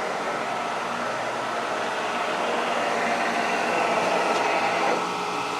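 Old Kearney & Trecker horizontal milling machine running with a boring head turning in its spindle: a steady mechanical whir. The sound grows a little louder, then drops and changes about five seconds in.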